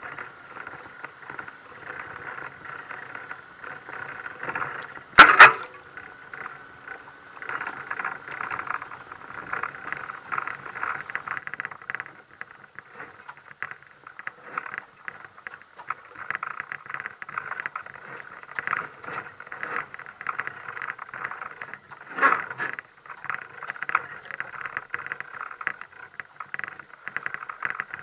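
Constant rattling and clattering as an off-road vehicle jolts along a rough dirt track, with a loud knock about five seconds in and another a little over twenty seconds in.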